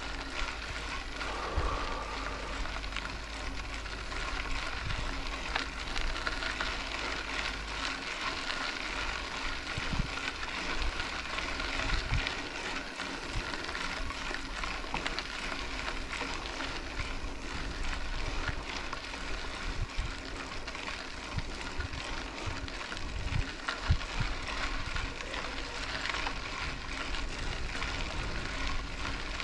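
Mountain bike rolling along a dirt road: a steady hiss of tyres on loose gravel, with scattered knocks and rattles from bumps, the sharpest about three-quarters of the way through.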